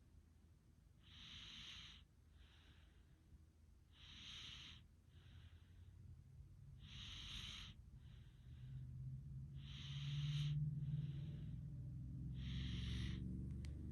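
Sleeping person's slow, hissing breaths, about one every three seconds, each followed by a softer one. A low hum builds up in the second half.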